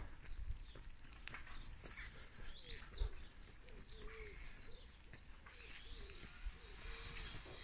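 Birdsong from the hedgerow: a small songbird's quick runs of high, falling notes, heard twice, over a lower call repeated several times.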